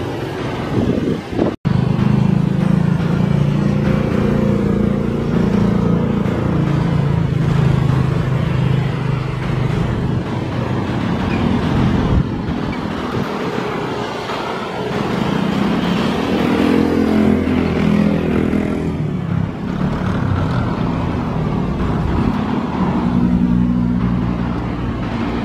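Twin-engine jet airliner on final approach to land: a steady, loud engine rumble with low droning tones that slowly waver. The sound drops out for an instant about a second and a half in.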